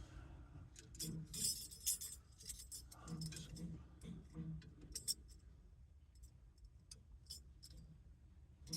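Small metal steering-wheel horn-kit parts being handled and fitted, with a run of light clicks and clinks, busiest in the first few seconds and sparser after.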